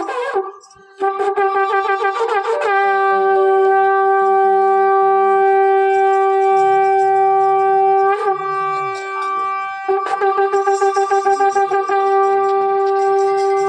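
Harmonium playing loudly, with no singing: quick repeated notes at first, then one long held note lasting several seconds. Near the end it returns to quick repeated notes.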